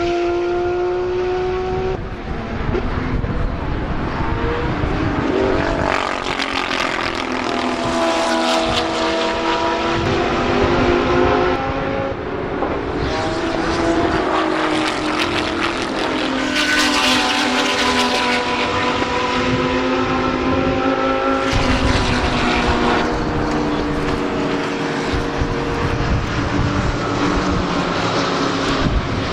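GT3 race cars running past one after another, their engines rising and falling in pitch as they accelerate, shift and lift, with several overlapping passes and no break in the engine noise.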